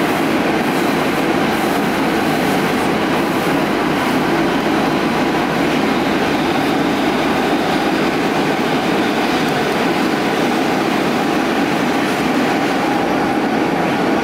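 Stockholm metro train running through a tunnel, heard from inside the passenger car: a steady, loud rumble of wheels on rail and running gear.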